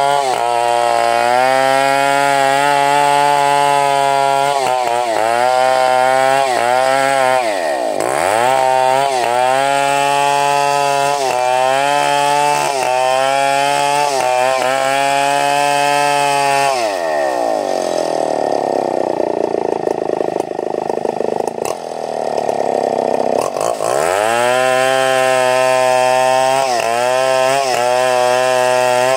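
Two-stroke chainsaw running at high revs while cutting wood, its pitch dipping repeatedly as the chain loads up in the cut. Past the middle the engine note falls away for several seconds, then revs back up.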